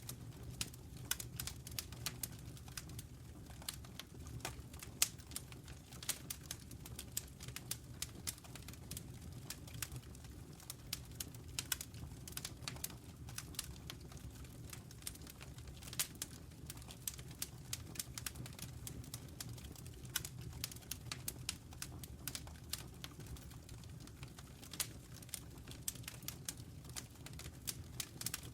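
Wood fire burning in a fireplace, crackling: irregular sharp pops and snaps, several a second, over a steady low rumble of the flames.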